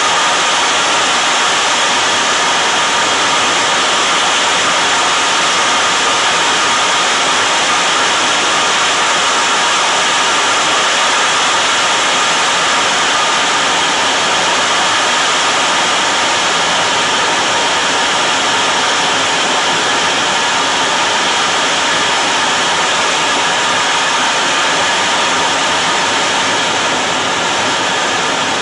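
Steady in-flight cockpit noise inside an F-14 Tomcat: an even rushing hiss heard under the canopy, easing slightly near the end.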